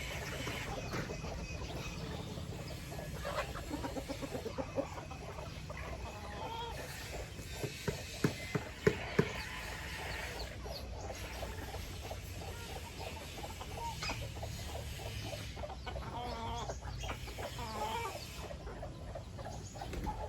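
A flock of chickens clucking at feeding time. A handful of sharp taps comes about eight to nine seconds in.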